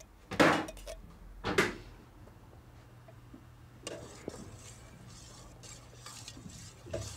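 Kitchen things being handled: two loud clattering knocks, about half a second and a second and a half in, then softer scraping and clinking.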